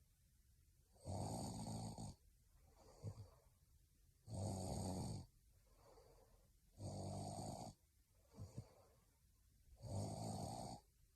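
A young woman snoring in her sleep: four snores about three seconds apart, each lasting about a second, with quieter breaths between them.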